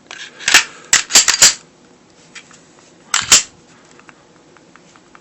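Glock 30 pistol being handled and reassembled: a quick run of sharp hard clacks, two more about three seconds in, then only faint light ticks. There is no rattle, because the firing pin has been taken out of the slide.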